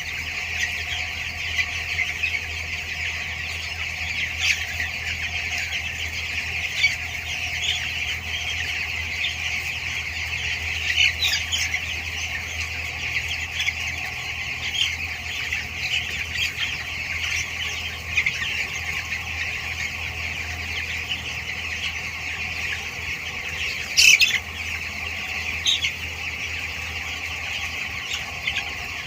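A large flock of two-week-old broiler chicks peeping all together in a dense, steady chorus. Now and then a single louder call stands out, the loudest about three-quarters of the way through. A low steady hum runs beneath.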